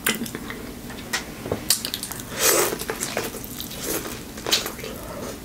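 Biting into and chewing corn on the cob: moist crunching of the kernels with scattered sharp clicks.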